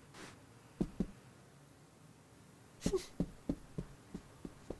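Cartoon foley for a cat fighting sticky tape: two soft paw taps about a second in, a brief louder sound near three seconds, then a run of light paw steps, about three a second, growing fainter as the cat scampers away.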